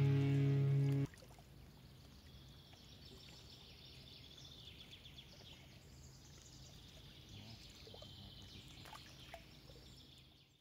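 Background music that cuts off about a second in, followed by faint outdoor lakeside ambience: a soft, steady hiss with faint high chirps and a couple of small clicks near the end.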